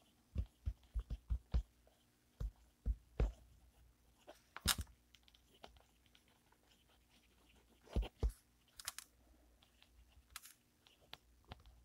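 Fountain pen with an extra-fine Bock nib writing on a lined spiral-bound notepad: quiet scratches and short taps as the letters are formed, coming in little clusters with pauses between.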